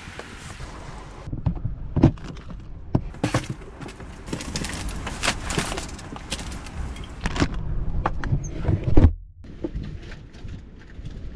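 Wind noise for about a second, then a run of clunks, knocks and rustling as a portable chest fridge inside a vehicle is opened and rummaged through, with a louder thump about nine seconds in.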